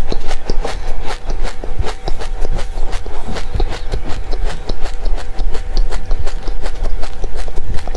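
Close-up crunching and chewing of dry seeds: a fast, irregular run of sharp crackles and clicks, several a second, over a steady low hum.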